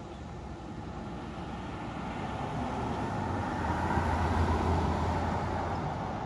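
A road vehicle driving past, its engine and tyre noise building to a peak about four seconds in, then fading away.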